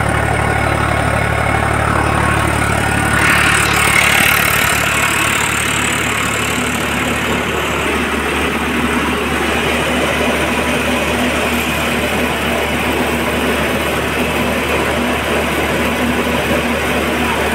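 Tractor diesel engine running steadily at about 1,500 rpm, driving a tractor-powered rice mill, the engine and the milling machinery running together in a steady drone. A slightly louder rush of noise about three seconds in.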